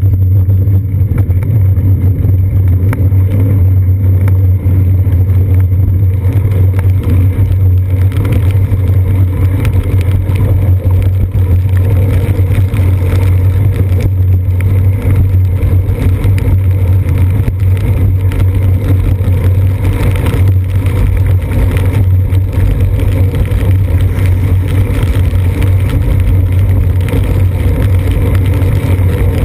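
Loud, steady low rumble of a bicycle riding on wet pavement, picked up by a seat-post-mounted GoPro Hero 2 in its housing: road vibration and wind noise on the camera.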